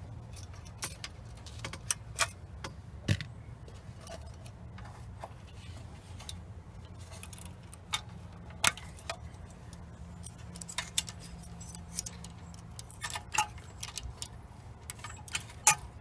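Small metal clicks and jingles, irregular and scattered, as the governor rod and two small steel springs are unhooked from the governor arm and throttle linkage of a 212cc Predator engine. A low steady hum runs underneath.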